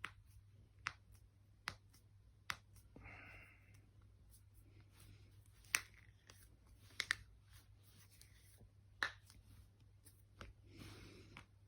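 Joints being cracked: about eight sharp pops. The first four come evenly, about a second apart, and the rest are scattered, two of them nearly together. Soft rustling of hands or clothing can be heard twice between them.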